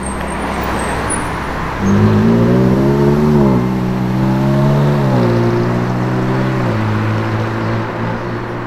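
A car's engine pulling hard: its note jumps up about two seconds in, climbs and drops back twice, then steps down to a steadier, lower note near the end, over a haze of traffic noise.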